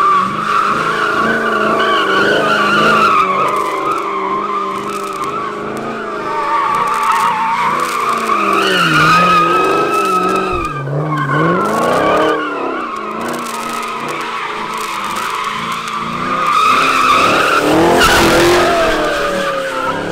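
Chevrolet Camaro doing donuts: the rear tires squeal in a long, wavering screech while the engine revs rise and fall, dropping away briefly a couple of times near the middle.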